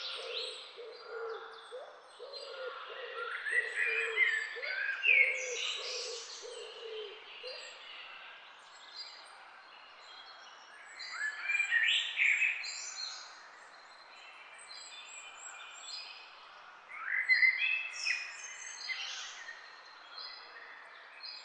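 Several wild birds chirping and singing together, in bursts of song phrases, with a low call repeated over and over during the first seven seconds or so.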